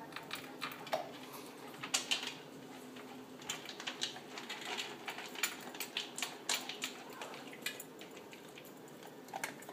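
Great Dane puppy eating dry kibble from an elevated stainless steel bowl: irregular crunching and clicking as kibble is chewed and knocks against the metal bowl.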